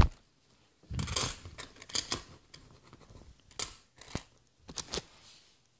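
50p coins being handled and sorted by hand: scattered short metallic clicks and scrapes, a few at a time, with quiet gaps between.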